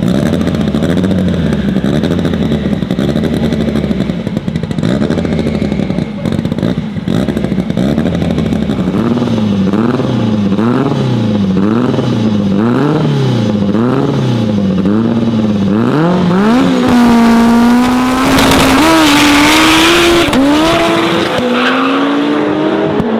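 The engines of a twin-turbo Ford F-150 and a turbocharged all-wheel-drive Honda Civic hatchback idle on the start line, then rev up and down over and over, a little faster than once a second, while staging. About 17 seconds in they launch at full throttle. Engine pitch climbs steeply with several shifts as they pull away.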